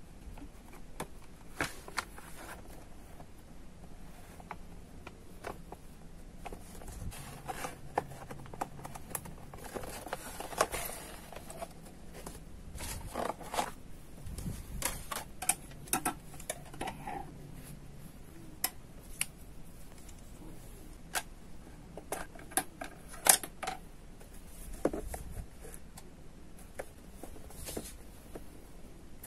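Plastic blister packaging and a flexible neck-mount phone holder being handled: scattered sharp clicks and taps with short rustles of plastic, and one louder click about two-thirds of the way through.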